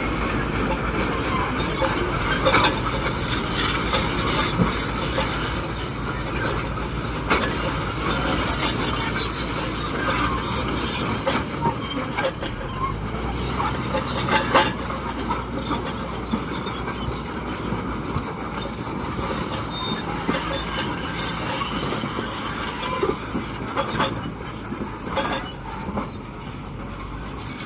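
Crawler bulldozer working: its diesel engine runs with a pulsing low rumble while the steel tracks squeal and clank. There are a few sharp metallic knocks, the strongest about fourteen seconds in.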